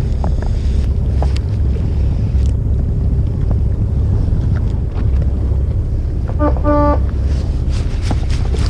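Steady low rumble of wind buffeting the microphone aboard a small fishing boat, with scattered light clicks. About six and a half seconds in comes a brief horn-like toot in two short parts.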